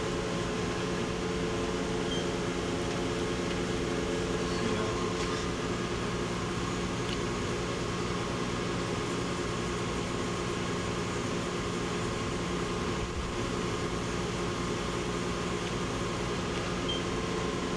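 Steady mechanical hum of a Mori Seiki NLX-2500SY CNC turning center under power, several steady tones over an even drone.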